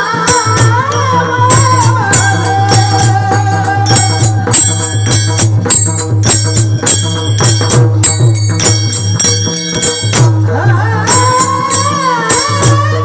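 Traditional devotional folk music led by a mridang (barrel drum) playing rapid strokes, with jingling metallic percussion and a held, wavering melodic line over a steady low drone.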